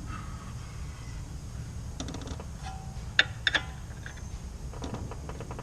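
A few sharp metallic clinks and clicks, the loudest a quick cluster of short ringing clinks about three seconds in, as steel suspension parts and tools are handled while lining up the steering knuckle with the strut for its top bolt. A low steady rumble runs underneath.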